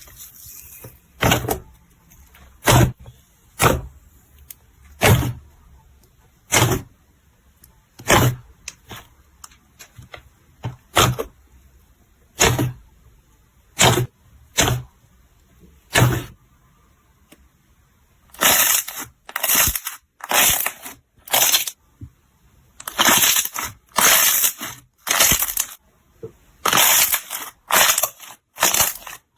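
Slime being pressed and squished by hand, giving sharp pops and cracks about once a second, then quicker clusters of them in the second half.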